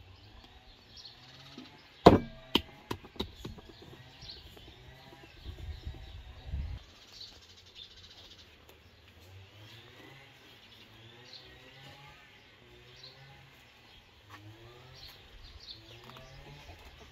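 Small birds chirping steadily in the background, with a quick run of sharp knocks and clicks about two seconds in and a short low rumble a few seconds later.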